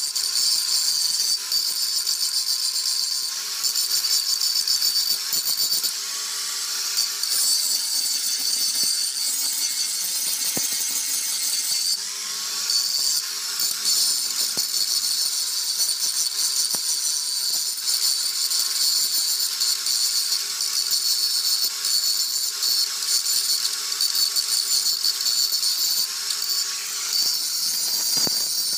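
Stick welding on a cast-iron tractor rear axle: the electric arc crackling and sizzling steadily, with a faint wavering whine underneath.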